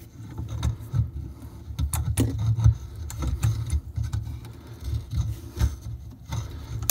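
The metal jaws of a hand tool scraping and clicking against the freshly cut end of a copper water pipe, used as a makeshift reamer to take the burr off the edge. Irregular dull knocks with a few sharp clicks.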